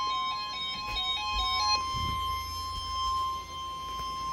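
Weather radio sounding the NOAA Weather Radio 1050 Hz warning alert tone, one steady high tone held throughout, the signal that a warning is about to be read. Over it, another weather radio plays a stepped electronic beeping alert melody that stops about two seconds in.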